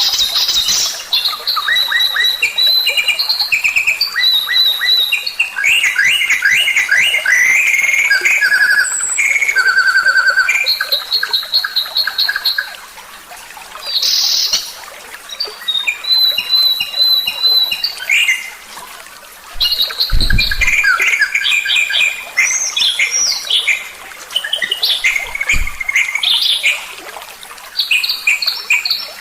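Songbird song played as a tutor recording for training caged birds: fast repeated trills and varied high chirping phrases, broken by a few short pauses, with two brief low thumps in the second half.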